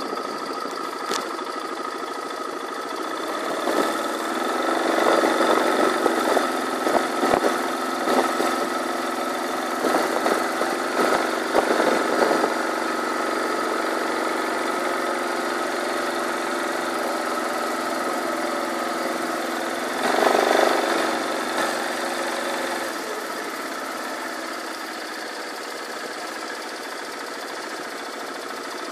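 An engine running steadily at idle, with scattered clicks and rustles in the first half and a brief louder burst about twenty seconds in.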